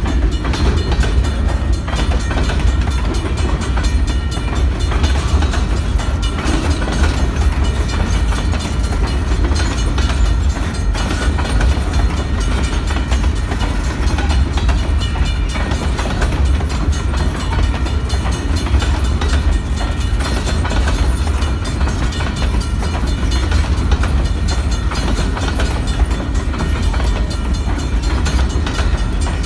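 Freight train's open-top hopper cars rolling past close by: a steady, loud low rumble and rattle of steel wheels on the rails, with no let-up.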